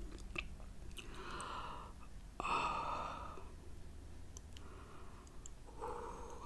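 Breathy sighs and exhalations from a person eating, three in all, the loudest starting sharply about two and a half seconds in. Faint clicks of fingers picking at seafood sound between them.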